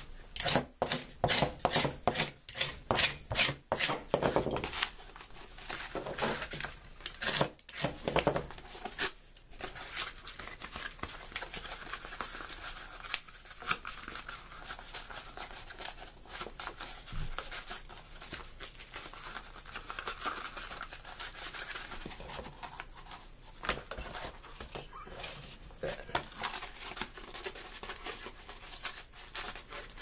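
Cardboard knee-pad shapes being traced and cut out with scissors. A run of sharp scratchy strokes, about two a second, fills roughly the first nine seconds, then gives way to quieter, steady cutting and rustling of the cardboard.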